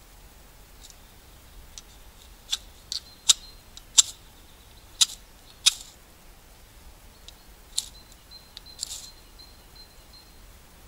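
A knife blade scraped in short, sharp strokes, about eight of them at irregular intervals over several seconds.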